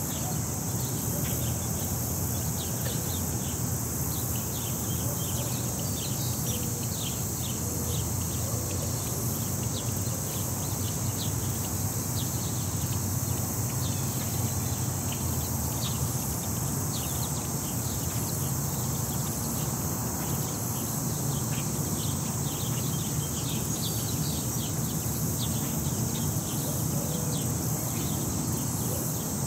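Park ambience: insects trilling in one steady high band, with short high chirps dotted all through it, over a low steady rumble of the surrounding city.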